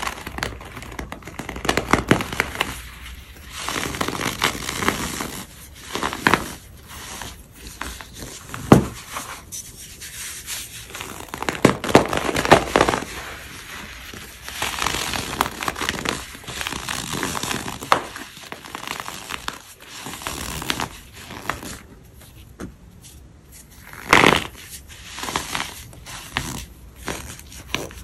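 Dry, crisp white chalky blocks being crushed and crumbled: an irregular run of crunches and crackles, with a few sharper snaps standing out.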